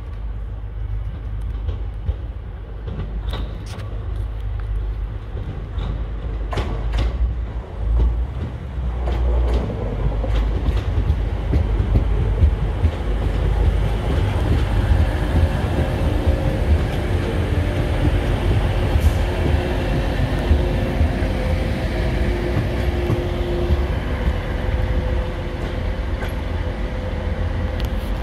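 TransPennine Express Class 185 diesel multiple unit running past with a low rumble, with several sharp clicks from the wheels on the track early on. About nine seconds in it grows louder as the unit's diesel engine hum comes in.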